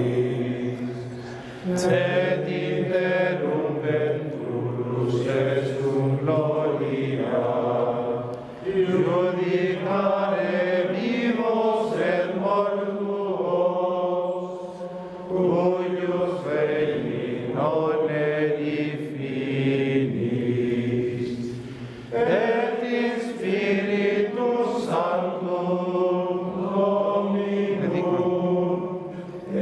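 Men's voices singing a Latin plainchant, a sung part of the Mass, in long phrases with short breaks for breath about every seven seconds.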